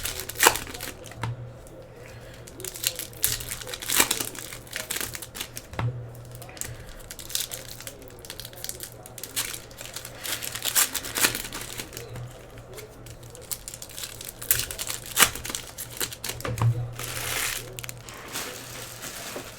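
Foil wrappers of Panini Hoops trading-card packs being torn open and crinkled, with the cards handled in between: irregular sharp crackles and clicks.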